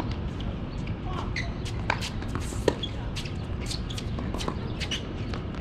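A tennis racket strikes a ball with one sharp pop about two and a half seconds in, with another sharp tap, likely the ball bouncing, just under a second before. Scattered light taps and shoe scuffs on the hard court sit over a steady low background rumble.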